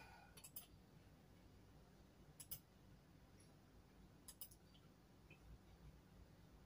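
Near silence broken by a few faint, sharp computer clicks, in small clusters about half a second, two and a half and four and a half seconds in, as someone works a laptop.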